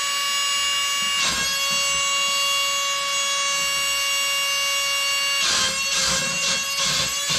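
Wall-climbing RC car's suction fan running with a steady high whine, broken by short bursts of rushing noise near the end.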